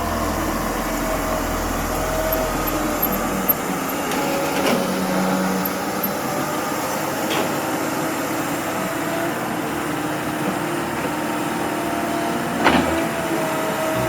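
A heavy construction machine's engine running steadily, with a few sharp metallic knocks, the loudest near the end.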